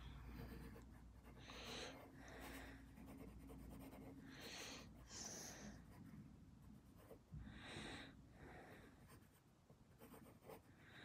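Pencil scratching lightly on paper in quick sketching strokes, faint, in short separate strokes a second or two apart.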